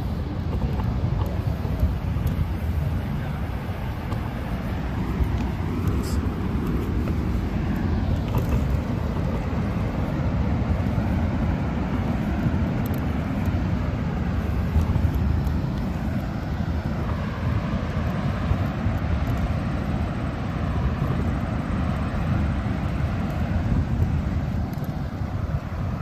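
Steady low rumble of a wheelchair's wheels rolling along a boardwalk.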